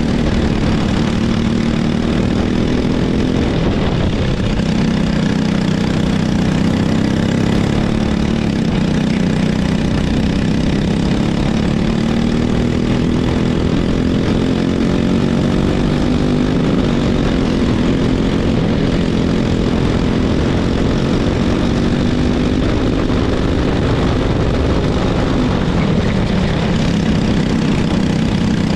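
Racing kart engine at full race pace, heard from on board, its pitch climbing and dropping several times as the kart accelerates and slows through the corners.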